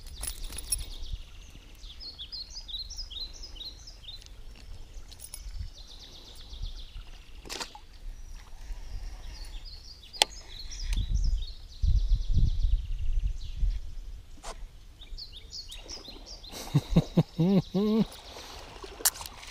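Small birds chirping in short bursts of high notes over a swamp's open-air background, with scattered sharp clicks and loud low thuds and rumbles from fishing gear and the boat being handled. Near the end comes a short run of rising, pitched calls.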